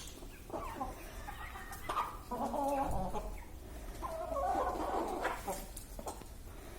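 A flock of broiler chickens calling and clucking, the loudest calls coming in two spells in the middle, with a few short sharp sounds in between. These broilers are now sneezing only a little.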